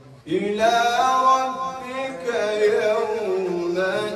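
A man reciting the Quran in a melodic chant, holding long drawn-out notes that slowly bend up and down in pitch. It starts after a brief breath about a quarter second in.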